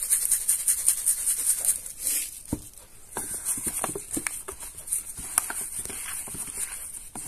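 Salt shaker shaken quickly over raw chicken, the salt rattling in rapid strokes for about two seconds. Then a gloved hand rubs the chicken pieces in a plastic tub, with plastic-glove crinkling and soft wet squelches.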